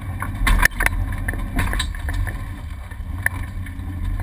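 Off-road vehicle's engine running with a steady low rumble inside the cabin, with knocks and rattles as it jolts over a rough dirt track. A loud clatter comes about half a second in, and lighter knocks follow.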